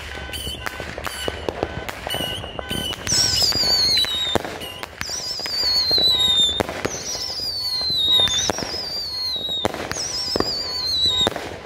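Magnus 'Midnight Howling' 500-gram fireworks cake firing: a run of sharp shots, then from about three seconds in four shots with long falling, warbling whistle tails (the cake's 'howling' effect), each sinking in pitch over a second or more, mixed with the bangs of the bursts. The firing stops abruptly near the end.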